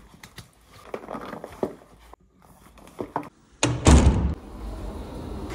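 Rustling and small clicks as gear goes into a fabric backpack, then a wooden front door shutting with a heavy thunk about three and a half seconds in.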